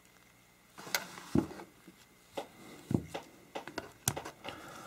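Scattered light clicks and a couple of soft knocks as ceramic-and-plastic hot surface igniters and multimeter leads are handled and set down on a towel-covered bench.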